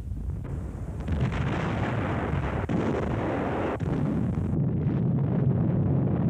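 Battle sound of artillery fire and explosions: a continuous rumbling roar, broken sharply twice. After about four and a half seconds it gives way to a duller, steady low rumble.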